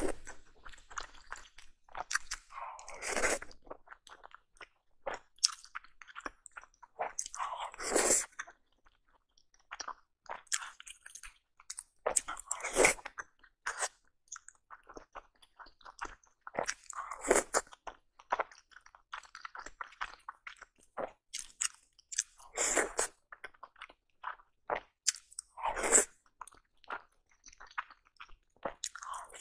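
Close-miked eating of soft steamed dumplings coated in chili oil: biting and chewing, with a louder bite every four to five seconds.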